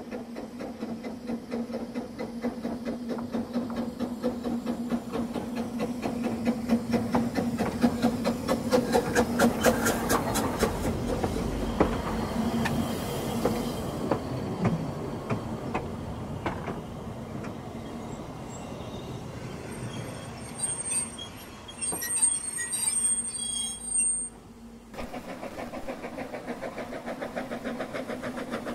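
Narrow-gauge Ffestiniog Railway double Fairlie steam locomotive and its carriages approaching and running past close by, the wheels clicking rhythmically over the rail joints, loudest about eight to ten seconds in. A few brief high squeals from the wheels come later on.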